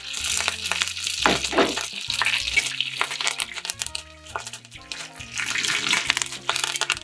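Dried red chillies and curry leaves sizzling and spattering in hot coconut-style frying oil over popped mustard seeds in an uruli, stirred with a metal spoon. The sizzle is strongest at first, eases off, then rises again near the end as it is stirred. Background music plays under it.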